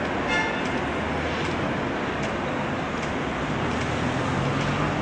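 Tatra T3 tram running away along its rails through a narrow street, heard as a steady wheel-and-traffic noise, with a brief high squeal about half a second in.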